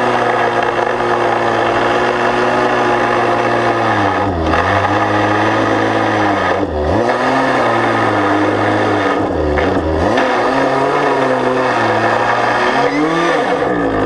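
Chainsaw engine running at high revs while cutting hardwood, its pitch dipping sharply under load about four times and picking back up each time.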